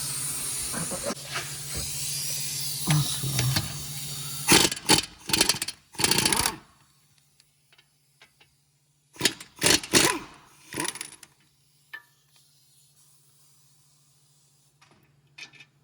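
Impact wrench hammering in short bursts, two clusters a few seconds apart, breaking loose the 21 mm brake caliper bracket bolts. A steady hiss runs under the first few seconds.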